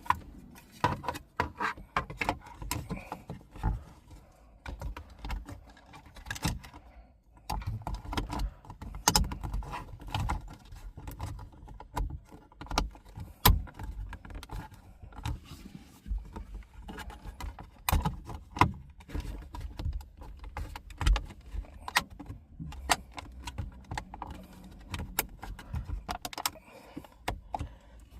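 Plastic car interior trim being handled and pressed back into place, with many irregular clicks, knocks and rattles as the clips and panel edges snap and shift.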